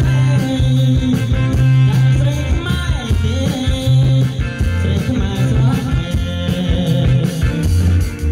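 Dance band music: a male singer over electric guitar, bass and drums, with a steady beat.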